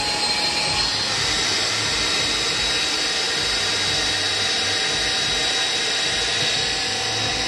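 Black Diamond JetForce avalanche airbag's battery-powered electric jet fan running at full speed, blowing air into the 200-litre bag with a steady high whine. It cuts off near the end, closing the nine-second mandatory fill.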